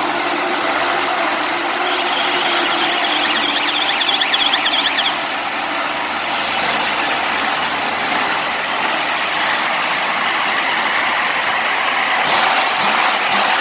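Maize silage baling and wrapping machine running with a steady mechanical din. A thin high whine sounds for a few seconds near the start.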